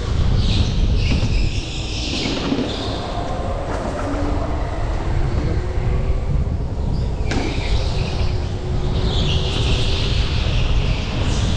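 Go-kart driving laps heard from onboard: a steady deep rumble with a faint motor whine that climbs slowly in pitch. Tyres squeal through corners at the start and again from about nine seconds in.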